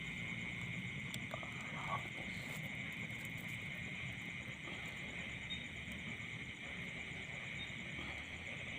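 Steady night chorus of insects and frogs: a continuous high drone with a faint, fast pulsing trill above it, and a couple of faint knocks about two seconds in.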